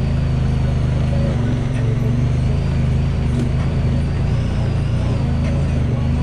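A vehicle's engine running at a steady speed during a ride, with a faint high whine that wavers slightly in pitch above it.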